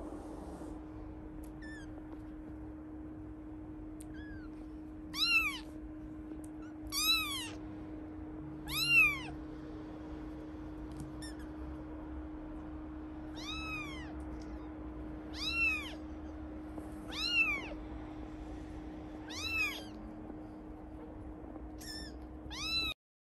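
Three-week-old British Shorthair kittens mewing: a string of short, high-pitched mews, each rising then falling in pitch, about one every two seconds, some faint and some loud. A steady low hum runs underneath and the sound cuts off just before the end.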